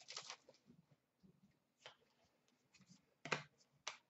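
Hockey trading cards being flicked and slid against one another by hand as a pack is sorted: four short swishes and clicks, the loudest a little past three seconds in.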